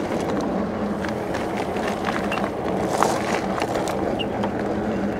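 Fat tyres of an electric bike rolling over a bumpy gravel trail: a steady rolling rumble with a low steady hum beneath it and many scattered sharp clicks of stones and rattles.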